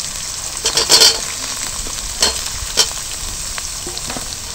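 Diced carrots and green capsicum sizzling in hot oil in a steel karahi, with a steady hiss. A steel spatula scrapes and knocks against the pan several times, loudest about a second in.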